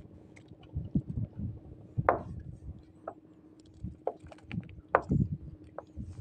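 Handling sounds aboard a small wooden fishing boat while a fish is unhooked: scattered light knocks and low thuds against the wood, the sharpest about two seconds and five seconds in, over a faint steady hum.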